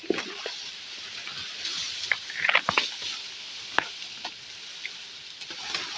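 Twigs and leaves crackling and snapping as a branch is cut and handled, with a cluster of sharp clicks between about two and four seconds in, over a steady high hiss.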